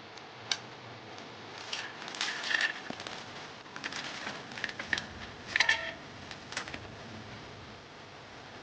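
Handling noise of small clicks and rustling. A sharp click comes about half a second in, then irregular clicking and rustling follow for about five seconds, loudest about five and a half seconds in.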